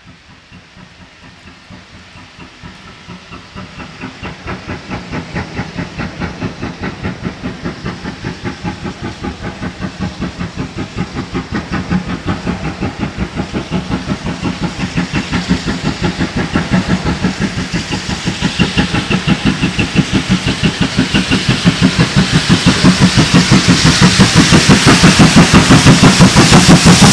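GWR 2-8-0 tank locomotive No. 4277 steaming hard towards the listener, its exhaust beats coming in a fast, even rhythm. The beats grow steadily from faint to very loud as it draws alongside.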